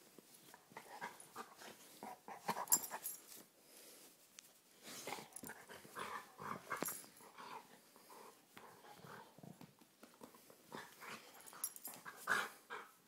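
A dog playing rough, making short growls and huffs in irregular bursts, with a few sharp knocks of handling in between.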